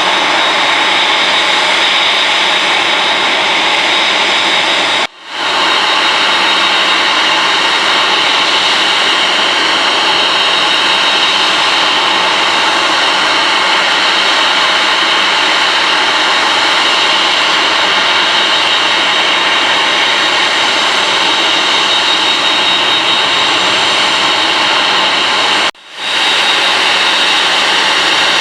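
Boeing 747-8F's four General Electric GEnx-2B turbofan engines running loud and steady, with a thin high whine over the jet noise. The sound cuts out briefly twice, about five seconds in and near the end.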